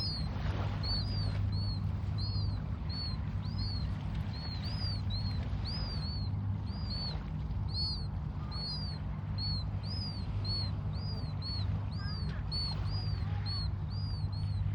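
A bird chirping over and over, short high arching notes about two or three a second, with a few lower rising calls about twelve seconds in, over a steady low hum.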